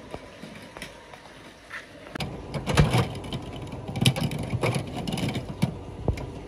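Clear plastic PET bottle preforms clattering and clinking against each other as a hand rummages through a bin full of them, a dense run of rattles from about two seconds in until near the end.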